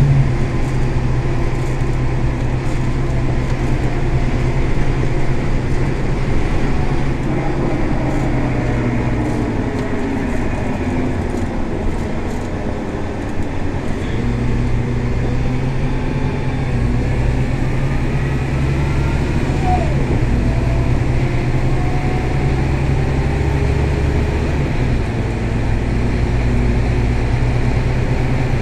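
Scania K320 bus's diesel engine running under way, heard from inside the bus with road noise: a steady low drone whose note shifts a few times.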